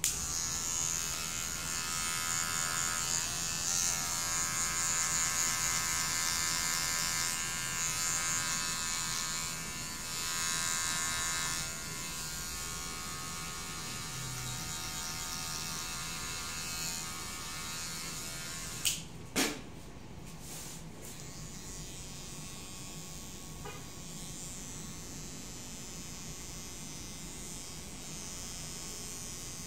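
Electric hair clipper buzzing steadily as it cuts the short sides of a haircut, louder and fuller for the first twelve seconds or so, then a softer hum. Two sharp clicks about nineteen seconds in.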